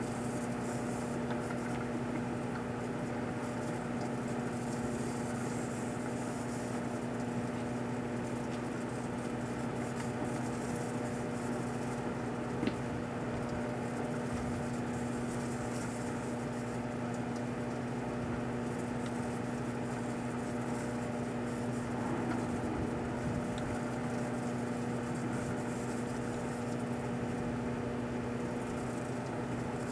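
Proctor-Silex microwave oven running steadily with a constant electrical hum, heating a plastic bottle of shampoo; one brief click about halfway through.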